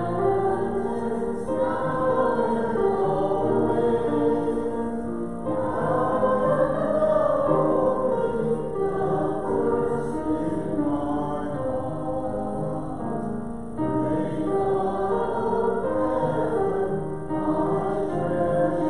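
A choir singing sacred music in sustained phrases, with new phrases starting about five and fourteen seconds in.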